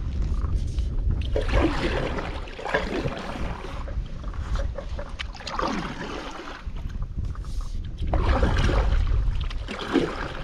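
Stand-up paddle strokes: the paddle blade dips and pulls through the river water with a swish every couple of seconds, over a low rumble of wind on the microphone.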